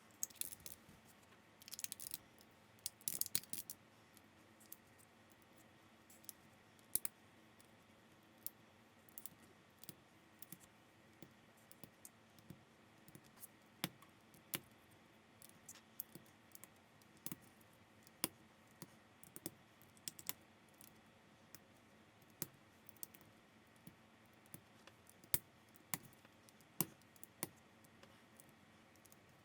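Plastic building bricks clicking as they are handled and pressed together, sharp separate clicks coming irregularly about once a second. A brief flurry of rattling clicks comes about two to three seconds in.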